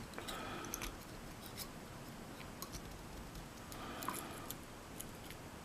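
Faint, scattered small metallic clicks and scrapes of a mortise lock cylinder being handled as a plug follower is pushed in to draw out the plug.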